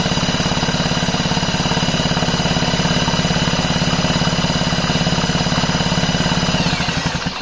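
Heavy-duty impact wrench running without hammering, spinning a McCulloch 1-72 chainsaw engine over to test its old ignition coil for spark. A steady motor whine sits over a fast rhythmic pulsing, winding down near the end and stopping.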